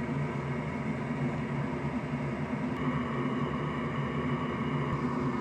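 Steady whirring hum of a small electric fan or blower, with a faint higher whine joining about three seconds in.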